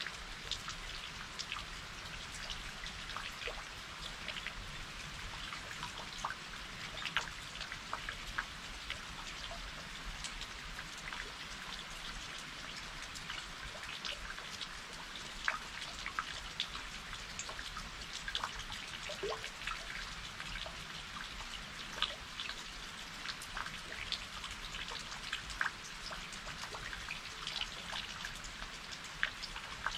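Rain falling steadily, an even hiss with many separate drops ticking close by at irregular moments.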